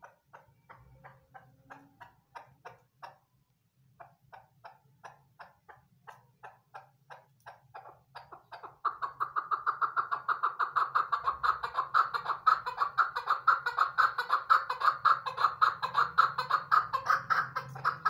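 Female chukar partridge calling: a series of sharp clucking notes, about four a second, breaks about halfway into a loud, fast chattering run that stops abruptly at the end.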